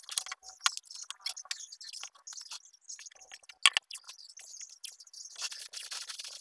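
Masking tape being pulled off the roll and pressed down onto a wooden board: irregular crackly peeling and rubbing with one sharp click a little before four seconds in, turning to a steadier crackle of tape unspooling near the end.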